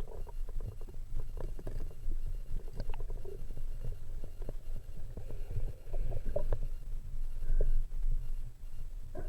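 Muffled underwater sound picked up through a diving camera's housing: a steady low rumble with many scattered clicks and knocks.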